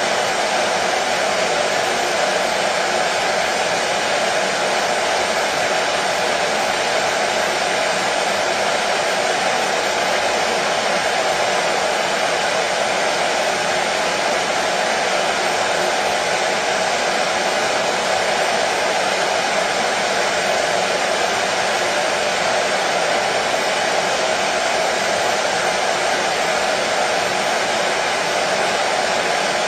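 Hair dryer running steadily: an even, unchanging rush of air and motor noise, strongest in the middle range.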